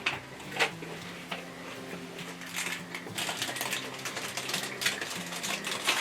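Close-up crunching and chewing of a Cadbury Picnic chocolate bar with peanuts, wafer and rice crisps: irregular crisp cracks and crackles, the sharpest about half a second in.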